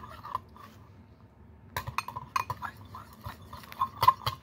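Metal butter knife clinking and scraping against the side of a dish while stirring a cookie-and-milk mixture, in a quick irregular run of clinks from about two seconds in.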